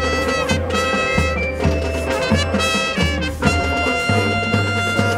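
Marching band brass section playing loud chords over bass drum and low brass hits, moving through short chords before a long held chord that the band cuts off together right at the end.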